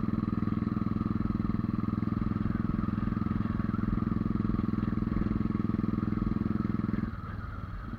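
Motorcycle engine running steadily under load, recorded from on the bike while climbing; the rider says it is not building pressure or picking up power because of the low oxygen at altitude. The engine note drops and turns quieter about seven seconds in.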